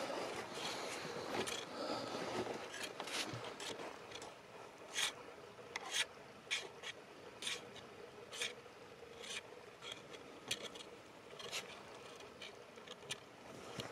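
Close scuffing and rustling, denser in the first few seconds, then a string of short sharp scrapes about every half second to a second, with a faint steady hum under them.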